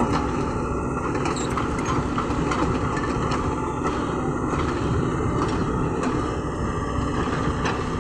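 LiuGong crawler excavator's diesel engine running steadily while the boom and bucket work into soil, with a held hum and a few light clicks.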